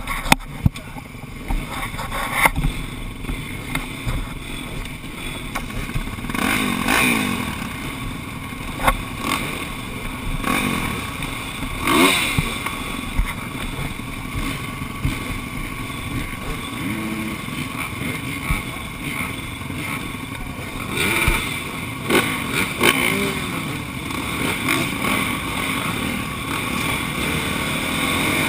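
Motocross bike engines running at the start gate, blipped now and then so the pitch rises and falls, and getting louder near the end.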